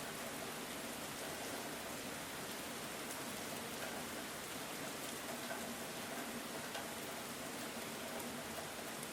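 Steady rain falling on the ground: an even hiss with faint scattered drop ticks.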